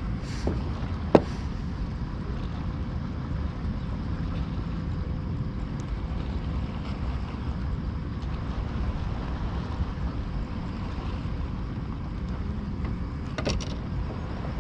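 Steady low rumble of wind on the microphone over open water, with a sharp click about a second in and a short, softer rattle near the end.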